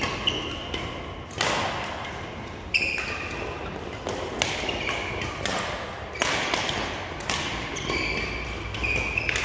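Badminton doubles rally: sharp racquet-on-shuttlecock strikes about once a second, each echoing in a large hall, with court shoes squeaking on the floor between shots.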